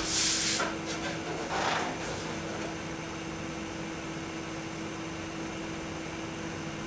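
A steady electrical hum with a faint hiss, like a running fan or powered equipment. A few brief rustling handling noises come in the first two seconds.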